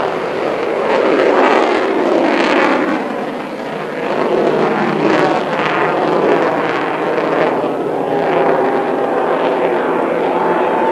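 Jet noise from an F-14 Tomcat flying overhead: a loud rushing that swells and ebbs in surges and dips briefly about three and a half seconds in. A thin steady whine joins it near the end.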